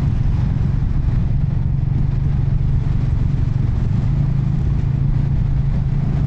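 Royal Enfield Classic 350's single-cylinder engine running at a steady, even pace under way, with wind and road noise.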